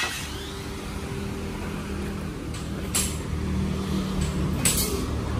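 A steady, low engine or motor hum runs throughout, with a few sharp clicks or knocks about halfway through and near the end.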